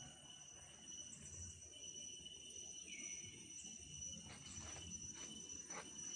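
Insects droning steadily at a high pitch, with a few soft clicks about four to six seconds in.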